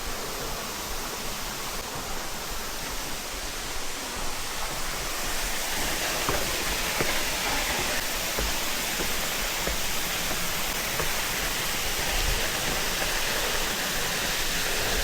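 Waterfall: a steady rush of falling water, growing a little louder about five seconds in.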